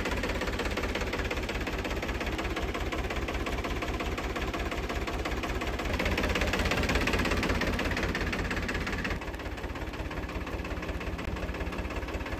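Powertrac Euro 50 tractor's diesel engine idling steadily with an even, fast low beat. It grows a little louder about six seconds in and drops back about three seconds later.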